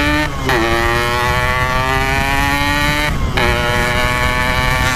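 Yamaha RX-King's two-stroke single-cylinder engine pulling under throttle, its note climbing steadily and briefly dropping away twice, about half a second and three seconds in, as the rider shifts up. A low rumble of wind and road noise runs underneath.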